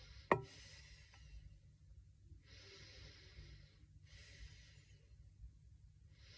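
A woman breathing slowly and deeply while holding her lips pushed forward in an O shape: several long, soft breaths a few seconds apart, with one short click just after the start.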